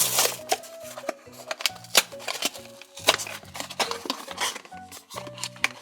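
Background music playing under a series of sharp clicks and crinkles from a plastic toy package being opened by hand.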